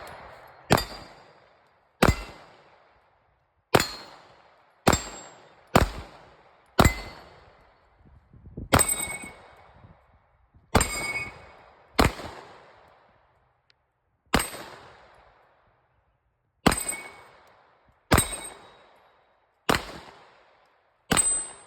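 Daniel Defense H9 9mm pistol firing about fourteen single shots, spaced one to two seconds apart, many followed by the ring of a hit on a steel plate.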